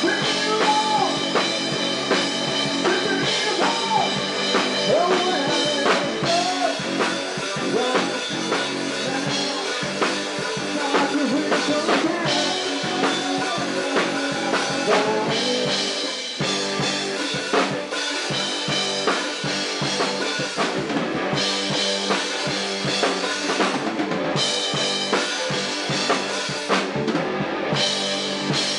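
A rock band playing live in a room: drum kit with kick and snare hits, electric bass and electric guitar, with a bending melodic lead line over the first several seconds.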